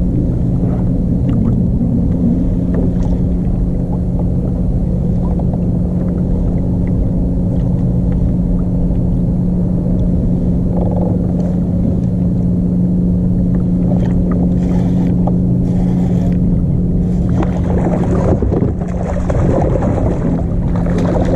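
Steady motor hum over rushing water as a kayak moves under power, with a gusty, hissing rush joining in near the end.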